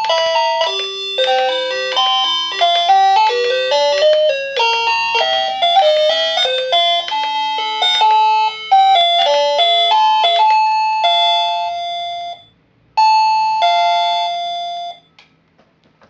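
Uninex WD-01 wireless doorbell receiver playing one short electronic chime tune after another as its ringtones are stepped through. A two-note ding-dong follows after a brief pause.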